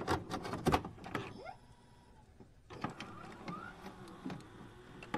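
Faint glitch-style digital sound effects: scattered sharp clicks and crackles in the first second or so, then a few faint short bleeps that glide upward and light ticks. These are the effects of an animated loading-screen intro.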